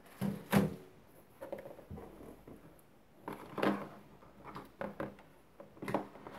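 Hands handling a cardboard packing box and lifting out a plastic power adapter and its cable: scattered light knocks and rustles at irregular intervals.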